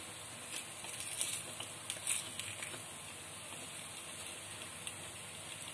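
Oil sizzling softly in a kuzhi paniyaram pan as ragi paniyarams are turned over with a wooden spoon, with a few light taps in the first couple of seconds.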